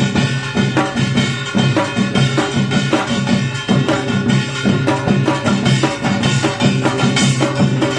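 Korean pungmul percussion ensemble playing a dense, steady rhythm of drums and ringing gongs.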